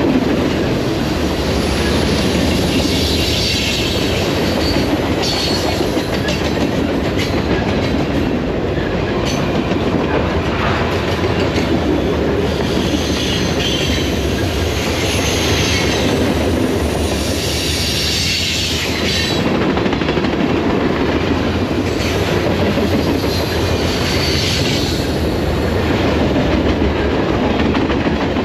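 Norfolk Southern freight train's cars rolling past at speed: a steady rumble with the clatter of wheels over the rails.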